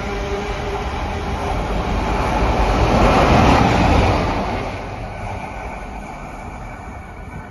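A train passing, its rumble building to loudest about three to four seconds in, then fading away.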